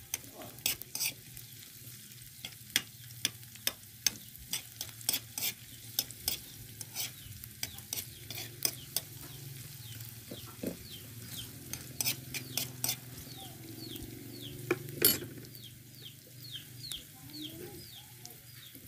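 Metal spoon scraping and tapping against a metal wok with sharp irregular clicks as chopped garlic and onion are stirred, sautéing in hot oil with a faint sizzle underneath. In the second half, repeated short high chirps, falling in pitch, come from a bird in the background.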